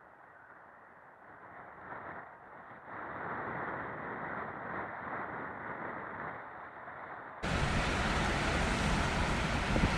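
Storm wind and breaking surf: a steady rushing noise that grows louder about three seconds in, then turns suddenly louder and fuller near the end.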